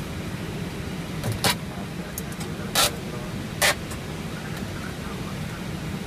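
Steady low rumble inside an Airbus A319 cockpit as the jet rolls slowly down the runway after landing, engines at idle. Three short sharp knocks cut through it, about a second and a half in, near three seconds and near four seconds.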